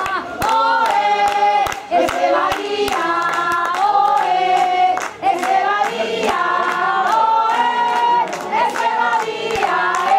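A group of football supporters singing a chant together, held notes in several voices, with hand claps keeping time.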